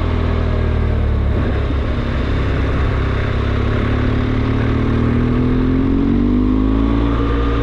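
A vehicle driving: a steady low engine hum with road noise, the engine's pitch rising from about halfway through as it accelerates.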